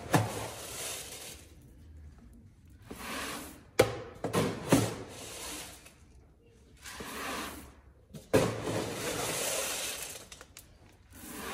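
Chicken feed being scooped with a plastic scoop from a galvanized steel can and poured out: the grain rattles and hisses as it pours, with sharp knocks of the scoop against the metal can, repeated a few times.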